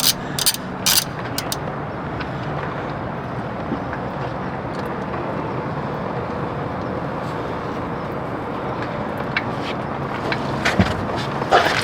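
A socket ratchet clicks a few times, loosening the engine oil drain bolt. Then engine oil pours from the drain hole in a steady rush, spilling past the drain pan onto the pavement.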